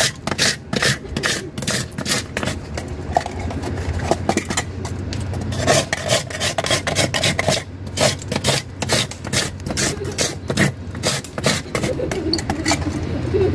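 A hand-held metal ice scraper shaving a block of ice in quick repeated rasping strokes, about three a second, with a brief let-up midway as the shavings are gathered.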